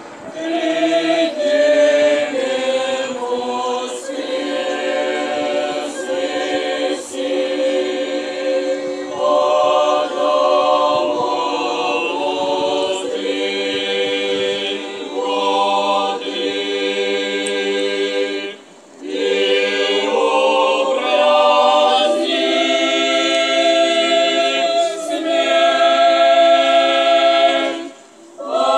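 Mixed youth choir of girls and boys singing a cappella in sustained chords, with a short break between phrases about two-thirds of the way in and another near the end.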